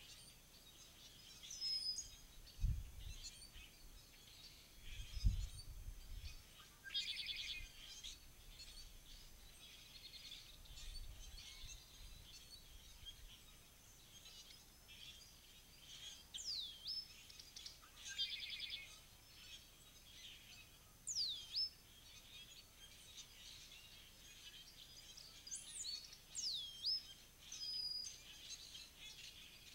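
Songbirds calling: scattered chirps, a few sharp whistles that sweep down in pitch, and a couple of buzzy rattles. Two low thumps come a few seconds in.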